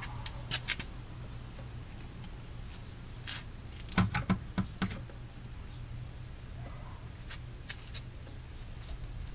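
Scattered light clicks and taps of hands handling the dry sump oil tank under a car, with a short run of knocks about four seconds in as the tank is gripped. A steady low hum sits underneath.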